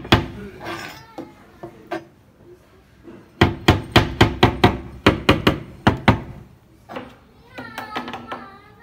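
Hammer driving nails into laminated chipboard: a single blow at the start, then a run of about a dozen quick blows, about four a second.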